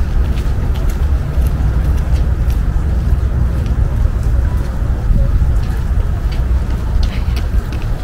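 Outdoor city park background: a steady low rumble, with light scattered ticks and rustles over it.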